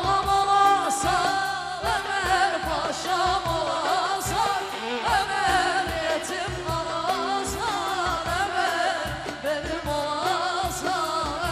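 Turkish folk-pop song: a singer with an ornamented, wavering vocal line over a band with a steady drum beat.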